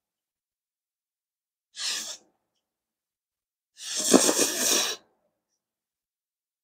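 A person slurping Pad Thai rice noodles: one loud slurp lasting about a second, starting about four seconds in, after a shorter breathy puff about two seconds in.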